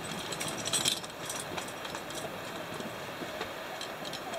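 Two-way radio hissing and crackling with static while a transmission comes in.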